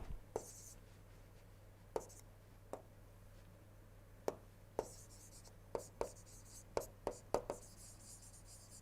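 Pen writing on paper: irregular light taps and short scratchy strokes as words are written out.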